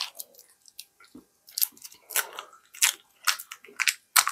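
Eating Mamba fruit chews, the candy being unwrapped and chewed: a series of short crinkly crackles, about six, spaced roughly half a second apart.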